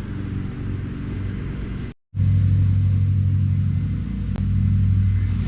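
Steady low mechanical hum of a motor running, with a short break about two seconds in, after which it comes back louder.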